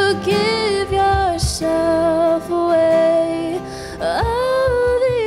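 Worship song performed live: a singer holding long sung notes that bend slightly, over band accompaniment.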